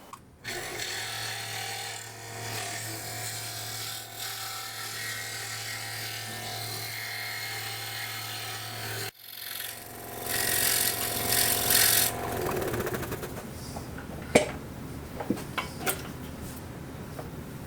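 Scroll saw running and cutting thin Baltic birch plywood: a steady low hum under the rasp of the blade. About nine seconds in it cuts off abruptly, a louder, hissier stretch of cutting follows for a couple of seconds, and a few sharp clicks come near the end.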